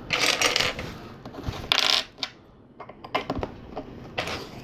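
Loose plastic LEGO pieces clattering and clicking as a hand rummages through a pile of parts, in two short rattling bursts followed by scattered single clicks.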